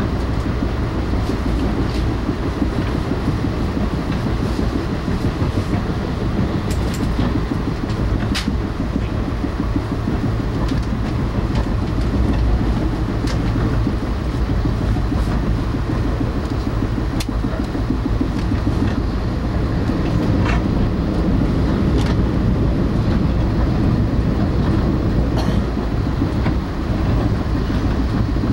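Steady low rumble of a moving passenger train car heard from inside the coach, with scattered sharp clicks of the wheels passing over rail joints.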